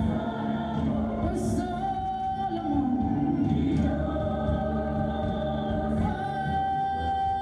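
A woman singing long held notes into a microphone, over a choir-like backing of other voices.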